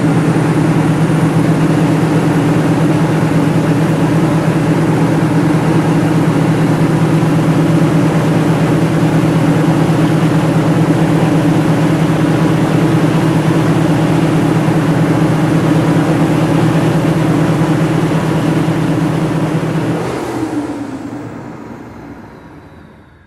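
Large multi-cylinder diesel generator set running at a steady speed, a deep even hum with no change in pitch. It fades away over the last few seconds.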